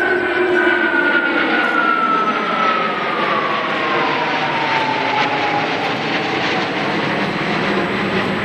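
JASDF F-15J fighter jet flying past: a steady, loud jet-engine roar with a whine that slides down in pitch as the jet passes and draws away.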